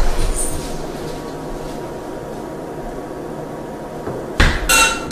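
Quiet room tone, then near the end a sudden metallic clink that rings on briefly.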